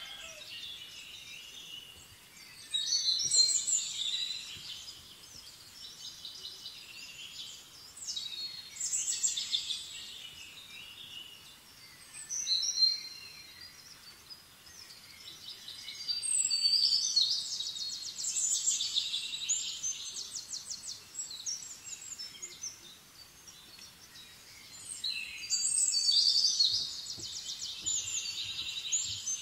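Birds calling in repeated high-pitched bursts of a few seconds each, some with fast trilling, with quieter gaps between.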